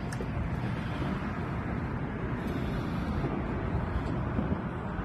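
Steady low rush of wind and choppy water around an open boat, with no distinct event.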